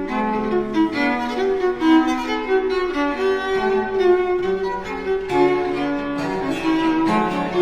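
Bowed string music: a slow melody played with several notes sounding together, each note held and then moving to the next.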